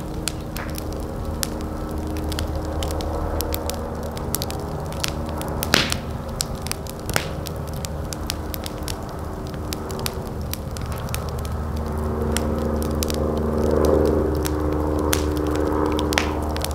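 Open fire burning and crackling, with sharp pops scattered throughout, the loudest about six seconds in, over a steady low rumble.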